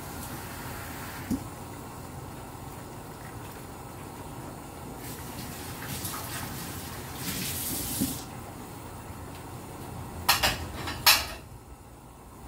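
Pork, potato and onion stew in thickened gravy simmering in a pan, bubbling steadily, with a louder hissing stretch in the middle. Three sharp knocks near the end are the loudest sounds.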